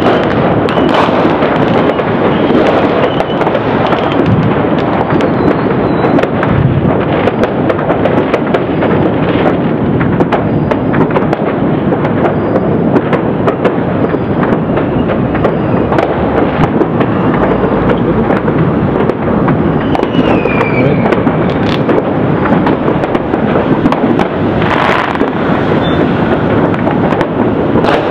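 Many fireworks and firecrackers going off at once: a dense, unbroken barrage of cracks and pops with no single burst standing out.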